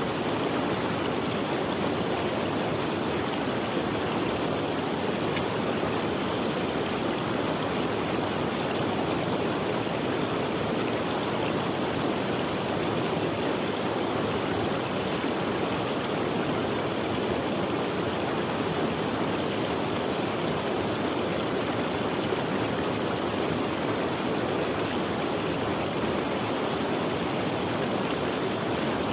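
Stream of running water flowing steadily, a continuous even rush with no breaks.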